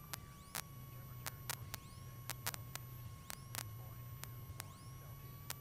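Faint electrical static crackle with frequent sharp clicks and a steady whine, over a low hum from the Cessna 172's engine idling during taxi.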